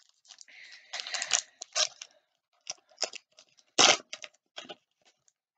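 Trading cards being handled: irregular rustling and crinkling with a few sharp clicks, and one louder knock about four seconds in.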